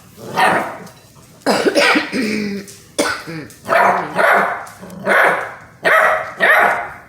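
Basset hound puppy barking repeatedly: about eight short, loud barks, roughly one a second.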